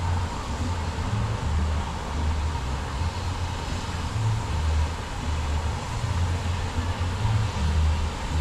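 Wind buffeting the microphone on an open chairlift: a low, uneven rumble that swells and fades every second or so, over a steady hiss.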